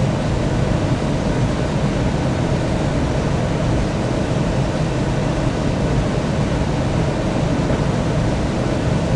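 Steady, unchanging drone of a jet airliner: low engine rumble and rushing air, with a few faint steady tones.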